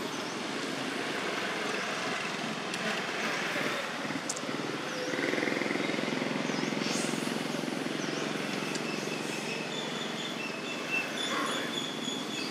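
Steady rushing outdoor background noise, with faint high chirps repeating about once a second and thin high tones near the end.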